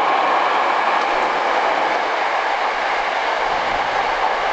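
Hankyu 9300 series electric train passing through the station at speed without stopping: a steady rushing of wheels on rails, with a deeper rumble joining about three and a half seconds in as the cars come alongside.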